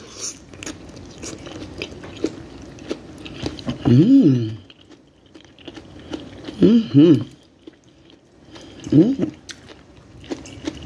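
A person chewing a mouthful of sautéed vegetables, with many small wet mouth clicks. Three short hummed vocal sounds come about four, seven and nine seconds in.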